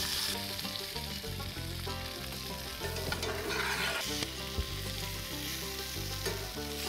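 Potatoes, onions and bacon sizzling in a hot cast iron skillet, being stirred and turned with a metal spatula.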